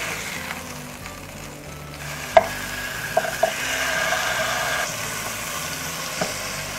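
Marinated sea bream sizzling in hot oil on a non-stick grill pan. A few sharp knocks of the wooden spatula against the pan come a little after two seconds in as the fish is turned, and the sizzle grows louder for a couple of seconds after.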